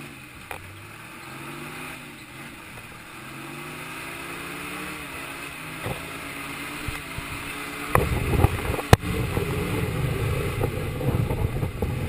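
Old Jeep's engine running at low speed, its pitch rising and falling. About eight seconds in it gets louder and rougher, with two sharp knocks as the vehicle moves over the trail.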